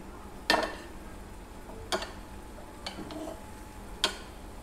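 Steel ladle knocking against a glazed ceramic bowl while mashing fermented fish paste (prahok) into water: four sharp clinks, the loudest about half a second in.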